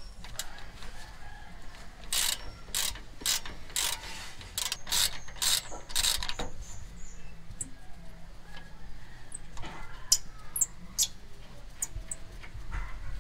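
Hand ratchet clicking in a run of short bursts, about two or three a second, as it turns a brake caliper bolt, with a few scattered clicks later on.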